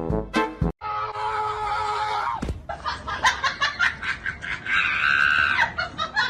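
High-pitched screaming and shrieking, wavering and held in places, following a burst of music that cuts off just under a second in.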